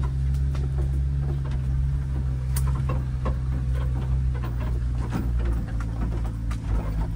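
Subaru Sambar kei truck's 660 cc engine running with a steady low drone, heard inside the cab as the truck crawls along a rough forest track, with scattered light clicks and knocks throughout.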